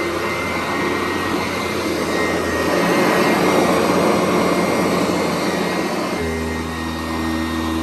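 Sanitaire SC889B upright vacuum running steadily while vacuuming, a dense rushing sound. About six seconds in, a steady low hum comes back under the rush.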